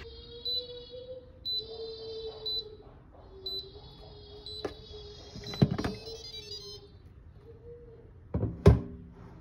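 Comfee electric pressure cooker beeping about once a second, then the clicks and knocks of its lid being turned and lifted off, with the loudest knock near the end.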